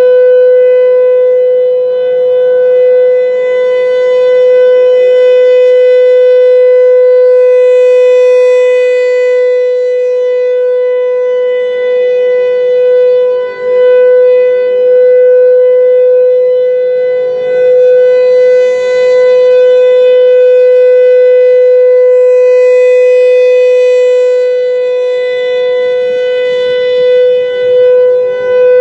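Federal Signal Thunderbolt 1000 rotating mechanical tornado siren sounding a steady-pitch Alert tone. The pitch holds level while the loudness slowly swells and dips as the horn turns toward and away.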